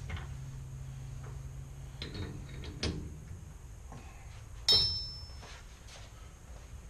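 Metal clicks and clanks from a lathe's three-jaw chuck being worked with its steel chuck key, with one loud clank that rings briefly about two-thirds of the way through. A low steady hum stops just before the louder clicks.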